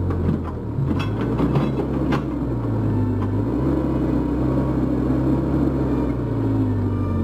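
Cat 304 mini excavator's diesel engine running under load, its pitch dipping and recovering a few times as the hydraulics work, with a few sharp knocks about one to two seconds in.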